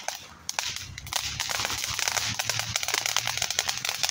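Ground fountain firework spraying sparks: a steady hiss with rapid crackling pops, getting louder about a second in.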